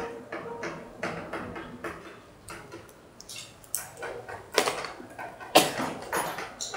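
Chalk tapping and scratching on a blackboard as characters are written, in irregular short strokes, the loudest taps a little past the middle.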